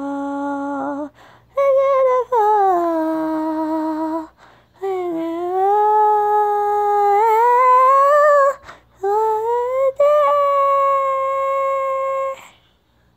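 A young female voice singing without words, humming-like and unaccompanied, in four long held phrases. The pitch slides up and down between notes, with short breaks for breath.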